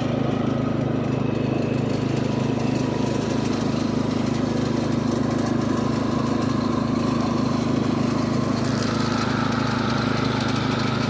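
Riding lawn mower's engine running steadily under load with the blades engaged, cutting grass.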